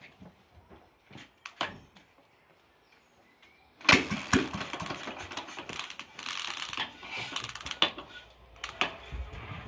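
Sturmey-Archer single-cylinder, air-cooled engine kicked over about four seconds in. It fires at once and runs with rapid, uneven firing, then drops to a quieter, rougher running near the end.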